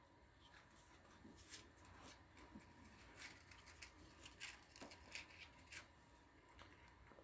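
Near silence, with faint scattered ticks and light rustles of small objects being handled.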